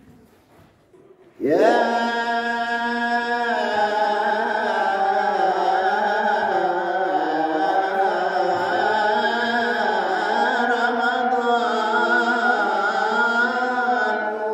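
A man singing an unaccompanied devotional hymn (ilahi) bidding farewell to Ramadan into a microphone. About a second and a half in his voice enters suddenly, gliding up into a long held note, then moves into a wavering, ornamented melody.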